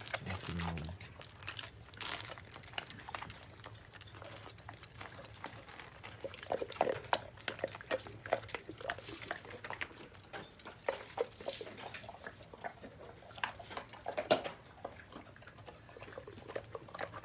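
A Dogo Argentino chewing a wood-fire-cooked bone, cracking and crunching it in short irregular bites.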